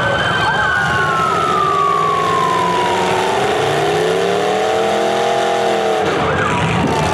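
Demolition derby car engines revving hard. A high whine falls in pitch over the first few seconds, then an engine's pitch swells up and back down near the middle.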